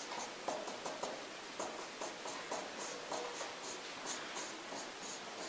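Dry-erase marker squeaking and tapping on a whiteboard as Chinese characters are written, a quick run of short separate strokes.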